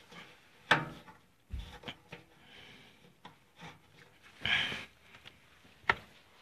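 Hand-tightening the mounting screw of a furnace capacitor: a few light, separate knocks and clicks of metal parts being handled, with a short rubbing rush about four and a half seconds in.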